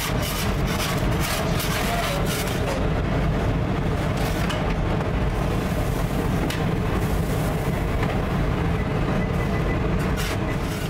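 Steady low rumbling hum of bakery oven machinery, with scattered light clicks and taps, most of them in the first couple of seconds and again near the end.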